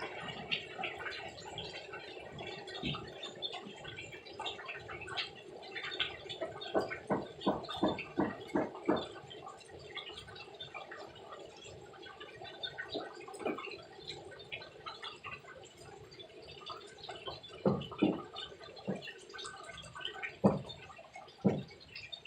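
Water gurgling, with irregular pops and drips over a steady hum; the pops come in quick runs at times.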